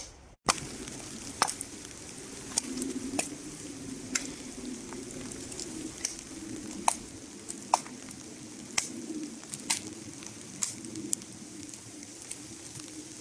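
Wood fire crackling, with sharp irregular pops over a steady hiss.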